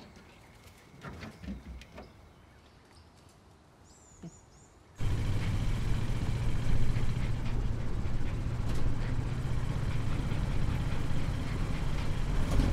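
A few soft knocks and rustles at low level, then about five seconds in an old pickup truck's engine and tyres come in suddenly and run steadily as it drives along a dirt road, with a strong low hum.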